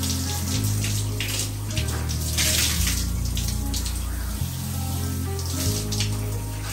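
A shower running, its spray hissing with irregular surges. Background music plays over it, with a deep bass line that changes note about every second.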